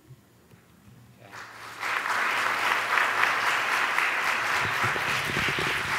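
Audience applauding: after a brief near-silent pause, the clapping builds up about a second and a half in and then keeps on steadily.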